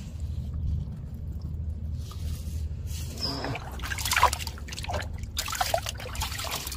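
Water splashing and trickling in a shallow rock pool as a gloved hand rummages in it among the stones. The splashes are sparse at first and come thick and fast over the second half, over a steady low rumble.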